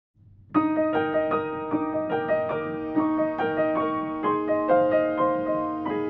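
Piano music: a melody of evenly struck notes over a held low note, starting about half a second in.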